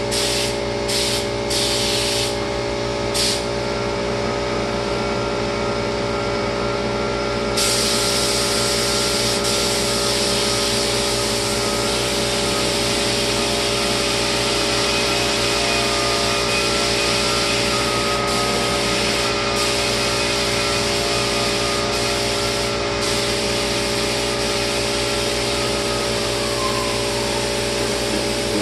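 Spray gun hissing as lacquer is sprayed: a few short trigger pulls in the first few seconds, then near-continuous spraying from about seven seconds in with a few brief breaks. A motor hums steadily underneath.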